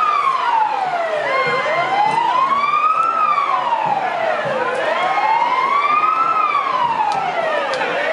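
Vehicle siren wailing, its pitch rising and falling slowly, one full rise and fall about every three seconds, over the noise of a street crowd.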